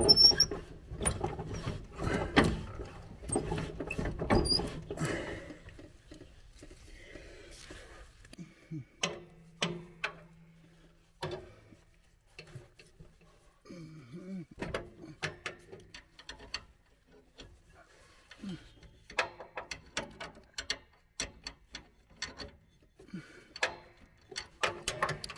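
Close handling and knocking noises at first, then scattered sharp metallic clicks and clinks from a wrench working at the nut of a riding lawnmower's steering drag link.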